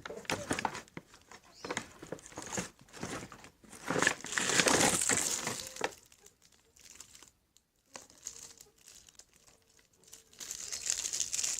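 Plastic crinkling and rustling from handling the slime-making containers and packaging, in irregular bursts, with a denser two-second rush of noise about four seconds in.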